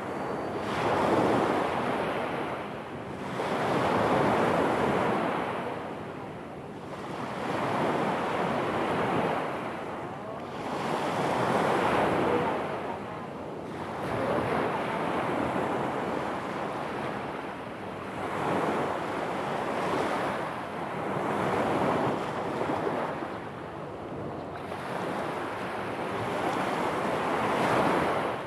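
Small sea waves breaking onto a stony beach, the surf swelling and fading about every three seconds.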